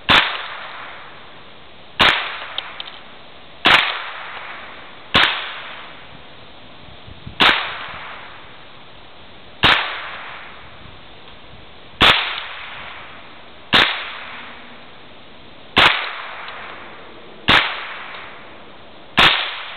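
Rifle fired one shot at a time, about every two seconds, eleven shots in all. Each is a sharp crack trailing off in a short echo.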